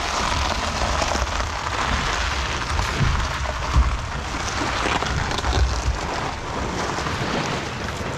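Wind buffeting the microphone in gusts, over a steady patter of seawater draining off a wet boat trailer onto shingle.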